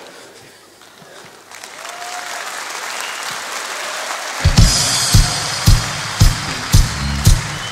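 A large audience applauding and laughing, the clapping building up. About four seconds in, music with a heavy, steady kick-drum beat, just under two beats a second, starts over the applause.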